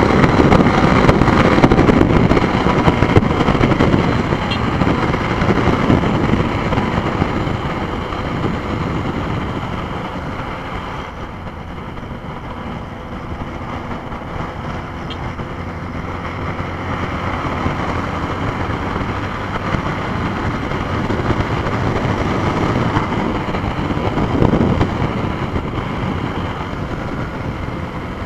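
Yamaha Fazer YS 250 single-cylinder motorcycle at highway speed on its stock exhaust, heard through heavy wind noise on the microphone. The sound is loudest at the start, eases off through the middle and swells again near the end.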